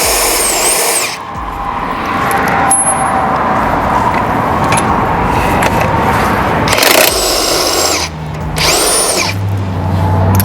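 DeWalt DCF961 20V MAX 1/2-inch cordless high-impact wrench on its highest speed, hammering wheel lug nuts loose. It runs in three bursts, each with a motor whine that rises and falls: one about a second long at the start, then two close together near the end.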